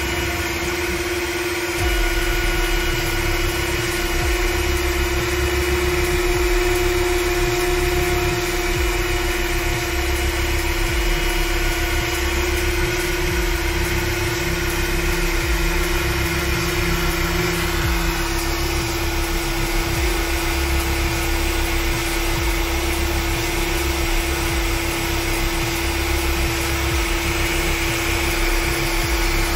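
Makita 700C router spindle on a CNC machine running at one steady high pitch while its bit mills a thin sheet. The low rumble under it steps up about two seconds in and stays steady.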